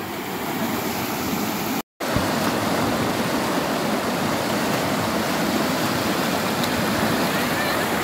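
Fast, muddy river water rushing over rapids with a steady, even rush. The sound cuts out completely for a moment just before two seconds in.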